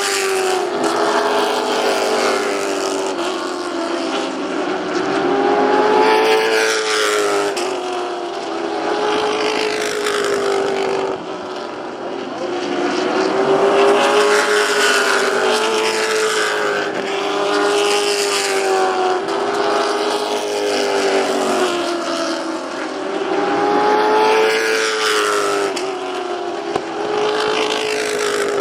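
Charger division stock cars running laps on a short paved oval, their engine pitch rising and falling over and over as they accelerate down the straights and lift for the turns, growing louder as they pass.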